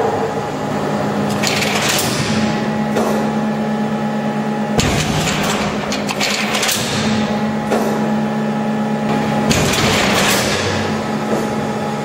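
CNTA 3150/16 hydraulic guillotine shear running: the hydraulic power unit hums steadily while the machine goes through its working strokes, each a surge of hissing, crackling noise. Two strokes start suddenly, about 5 s and 9.5 s in.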